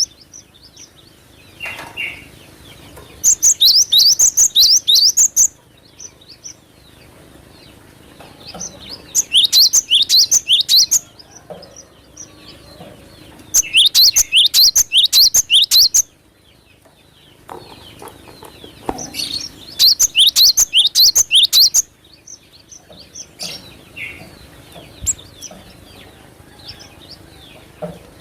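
Cinereous tit (gelatik batu) singing: four loud bursts of rapid, high, rising notes, each about two seconds long and coming every four to five seconds, with softer scattered calls and clicks in between.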